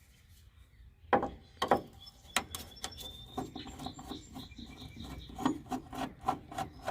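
Light clicks and knocks of hand tools being handled, a run of short taps starting about a second in.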